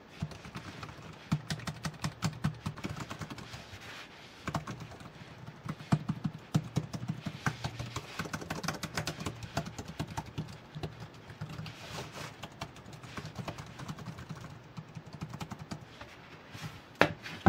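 Typing on a SEON KB01 folding keyboard's scissor-switch (pantograph) keys: a fast, uneven run of soft key clicks, with a short lull about four seconds in. A couple of louder knocks come near the end.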